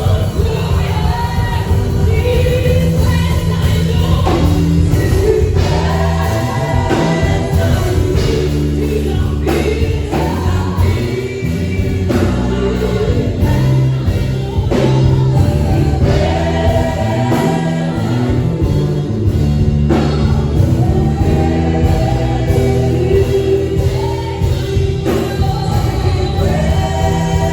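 Gospel worship song: a choir singing over a steady band accompaniment with a regular beat.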